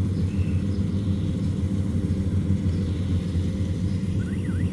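Small engine of a rice-cutting machine running steadily at a constant speed, a low even drone.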